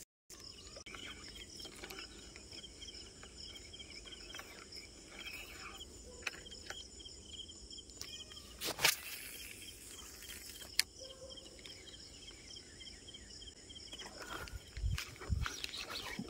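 Outdoor insect chorus: a steady high buzzing with rapid chirping. A couple of sharp clicks cut through it partway along, and a few low bumps come near the end.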